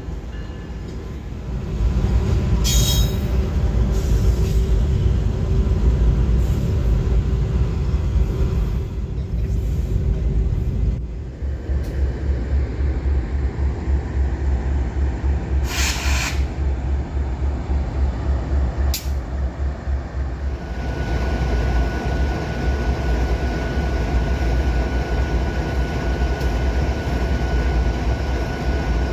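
Freight train rolling past: a steady low rumble of wheels on rail, broken by a few sharp clanks. A thin, steady high squeal joins about two-thirds of the way through.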